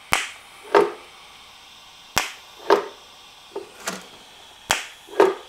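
TIG torch striking short tack-weld arcs on stainless steel, in four pairs: each a sharp crack followed about half a second later by a shorter, lower burst, repeating every one to two seconds.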